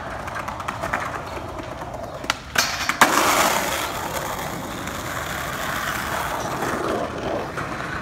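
Skateboard on concrete: two sharp clacks of the board about two and a half and three seconds in, then its wheels rolling steadily over the rough concrete for several seconds.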